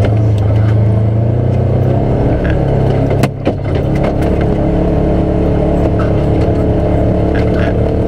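Polaris Ranger XP 1000 Northstar side-by-side's engine running steadily under way, heard from inside its enclosed cab, with a brief dip in level a little over three seconds in.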